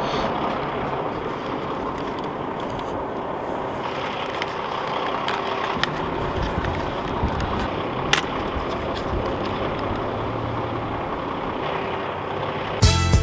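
Steady rumble of idling diesel truck engines, with a few light clicks. Music starts just before the end.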